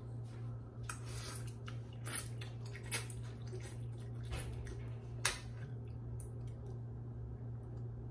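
A person eating instant noodles: short slurps and chewing, with a metal fork scraping and clinking in a ceramic bowl, the sharpest clink a little after five seconds in. A steady low hum runs underneath.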